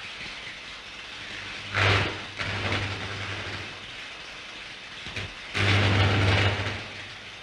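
High-voltage laboratory apparatus buzzing and crackling with electric sparks in two bursts, about two seconds in and again at about five and a half seconds, each with a low electrical hum. A steady hiss from the old soundtrack lies underneath.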